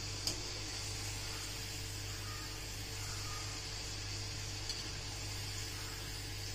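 Kadakani dough braid frying in hot oil: a steady soft hiss over a constant low hum, with one faint click shortly after the start.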